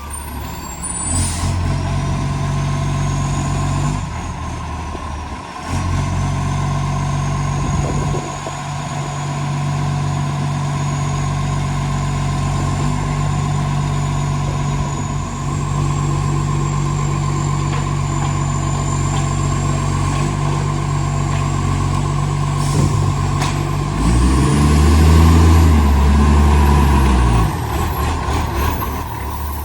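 Side-loader recycling truck's diesel engine running with a massive exhaust leak, over a high thin whine. Near the end the engine revs up and falls back, the loudest part.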